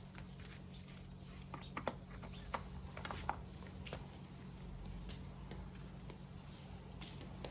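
A faint steady low hum, with scattered small clicks and taps, most of them in the first half.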